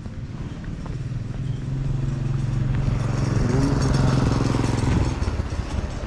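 A small motorcycle's engine running as it comes along the road. It grows louder, peaks about four to five seconds in, then eases off.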